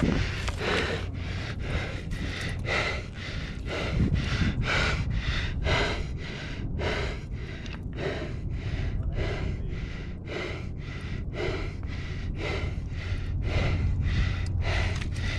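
A man panting heavily in quick, even breaths, about two a second, out of breath from exertion.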